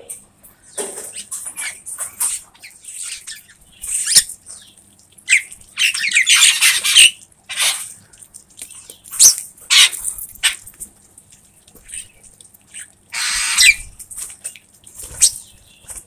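A flock of bank mynas calling while feeding on grain, in short harsh squawks and chattering notes scattered throughout, with longer harsh bouts about six seconds in and again around thirteen seconds.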